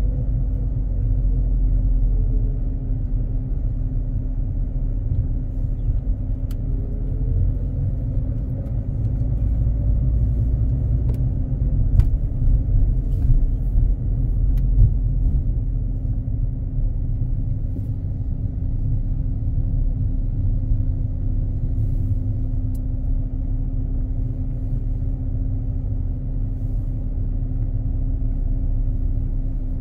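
Car driving slowly, heard from inside the cabin: a steady low rumble of engine and tyres with a constant hum, and a few faint ticks.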